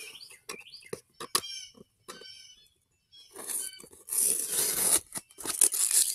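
Packaging being torn open by hand: a few light handling clicks, then about three seconds in a long ripping tear, followed by more tearing and crinkling near the end.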